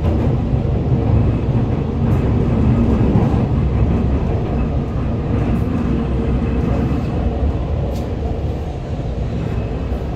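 Hohhot Metro Line 1 train heard from inside the car: a steady running rumble with a faint whine, easing down a little in the second half as the train slows for its station.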